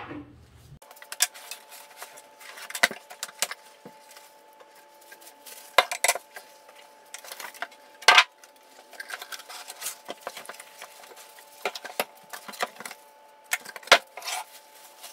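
Sped-up unboxing noises: a quick run of clatters, clinks and rustles as cardboard, plastic wrapping and loose metal parts of a benchtop band saw are handled, with a few sharp knocks standing out, over a faint steady hum.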